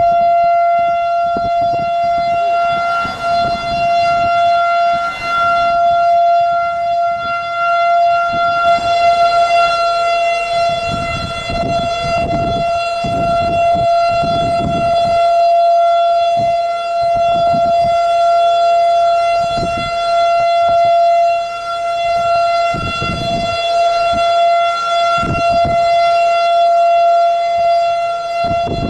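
Outdoor civil-defense warning siren sounding one steady, unchanging pitch under an approaching supercell, the typical tornado warning, with irregular low rushes of noise underneath.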